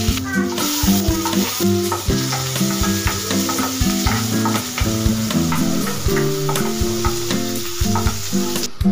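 Hot oil sizzling in a nonstick pan with cumin seeds, green chillies and sliced onions, stirred with a spatula, over background music. The sizzle starts abruptly and cuts off shortly before the end.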